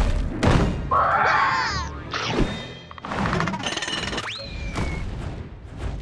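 Cartoon soundtrack of music and sound effects: heavy thuds near the start, then a whistling slide about four seconds in that shoots up sharply and drifts back down.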